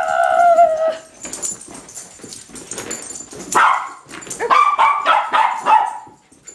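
Small dog, a bichon frise, whining and barking in excitement at a laser dot: one long whine in the first second, then a quick string of short barks and yips from about four and a half to six seconds in.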